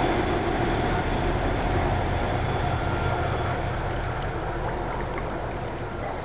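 Steam-hauled train behind SNCB locomotive 29.013 receding after crossing the viaduct: a steady rumble that fades slowly away, with a faint hum that dies out within the first two seconds.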